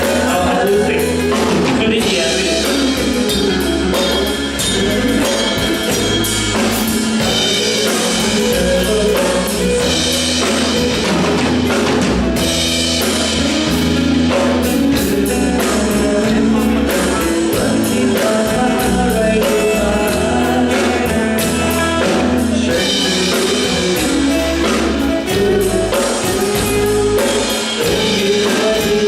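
Live band playing a song at a sound check: drum kit, bass and a singer, loud and continuous.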